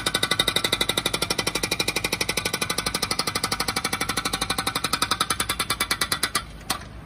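Demeter 85 hydraulic breaker on a Bobcat E19 mini excavator hammering rapidly, about ten blows a second. The hammering stops near the end, with one last single blow.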